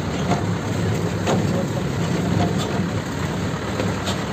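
Safari bus engine running as the bus drives along a dirt forest track, a steady low drone with a few faint knocks or rattles.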